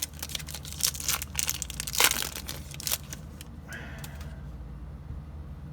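Foil trading-card pack wrapper crinkling and cards being handled, a dense run of crackles and clicks over the first three seconds, then quieter handling over a low room hum.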